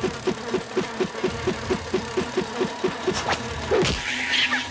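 Rhythmic sound effect: short pulses, about five a second, each dropping in pitch, stopping a little over three seconds in. A few sharp swishes and a steady hum follow.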